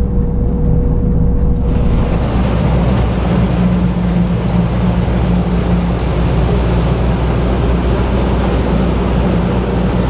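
Laverda M 306 combine harvester running while harvesting rice: a steady low engine drone, heard first inside the cab and then from outside, where about two seconds in it is joined by a broad rushing noise.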